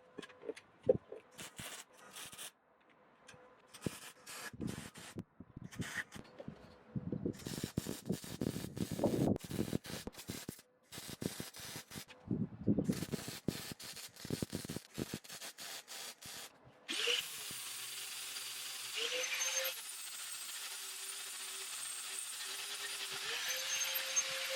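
Welding arc crackling in irregular bursts of a second or several, with short pauses between welds. About two-thirds of the way through, a steady power tool starts and runs on, its pitch shifting a couple of times.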